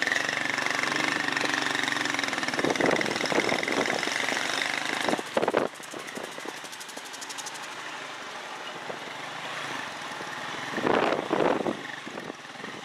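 Small motorcycle engine running while carrying riders over a rough dirt road, with a rattling, knocking note. It is loudest in the first half, drops sharply to a quieter running note just after a loud jolt about halfway through, and swells again briefly near the end.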